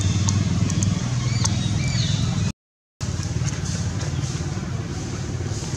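A steady low engine drone, like a nearby motor vehicle running, with a few short high chirps and squeaks over it in the first half. The sound cuts out completely for half a second about two and a half seconds in.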